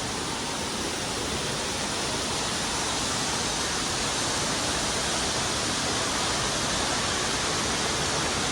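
Steady rushing of a man-made atrium waterfall: water falling in a constant, even wash of noise.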